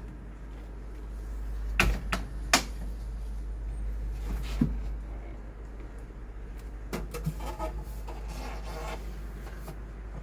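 A few sharp knocks and clicks, three close together about two seconds in and more later, then a stretch of rustling, over a steady low hum.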